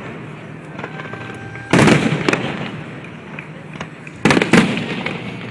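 Aerial fireworks shells bursting. A loud boom about two seconds in trails off in a rumble and is followed half a second later by a sharper crack, then two more bangs come close together near the end.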